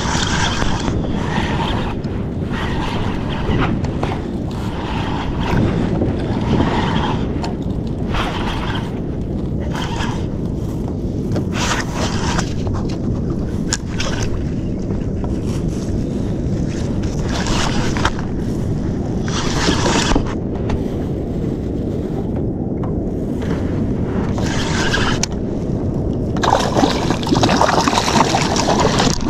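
Wind buffeting the microphone on a kayak at sea, a steady low rumble broken by short hissing washes every second or two. In the last few seconds the water splashes louder as a hooked fish thrashes at the surface beside the kayak.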